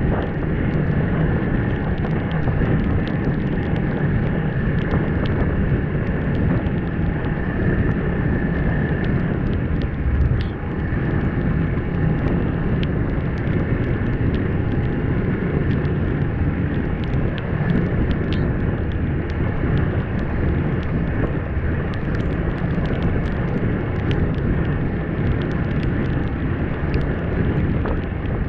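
Snowmobile running at a steady cruising pace along a trail, its engine and track noise mixed with wind buffeting the microphone, with scattered small ticks through it.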